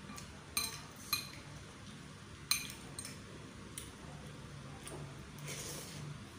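Metal fork and spoon clinking against a ceramic bowl of noodles, with three sharp ringing clinks in the first three seconds and a few lighter taps after. A short slurp of noodles comes near the end.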